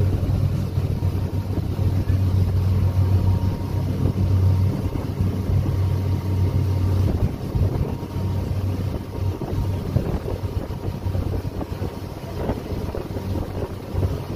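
Ferry's engine running with a steady low hum, under wind on the microphone and the rush of water from the wake. The hum weakens about seven seconds in.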